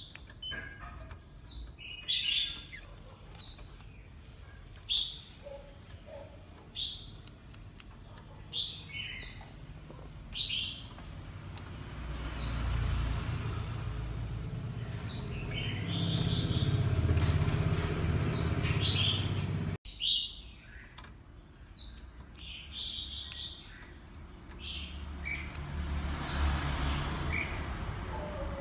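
Oriental magpie-robin giving short, sharp falling whistled calls every second or two, some of them doubled. A low rumbling noise underneath grows louder through the middle and again near the end.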